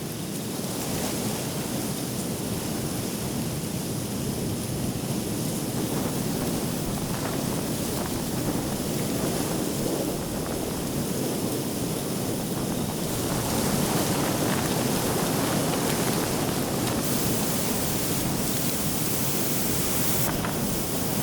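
Strong gusty wind buffeting the microphone: a steady rushing noise that grows louder and hissier about thirteen seconds in.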